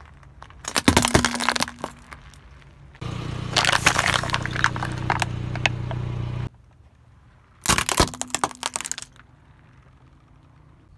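A car tyre rolling over and crushing things in three separate bursts: a sharp crunch of plastic spoons and small balls about a second in, a longer spell of plastic bottles crackling as they are flattened, with a steady low hum under it, and a crack of a hard plastic toy breaking near the end.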